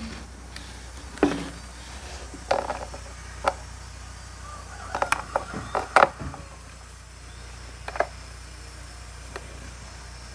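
Scattered light clicks and knocks of a saw chain and chainsaw parts being handled while the chain is fitted onto the bar, loudest about six seconds in, over a steady low hum.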